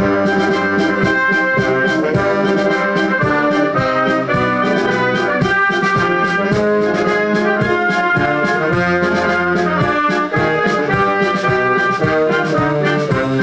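Brass band playing music with a steady beat, trumpets and trombones to the fore.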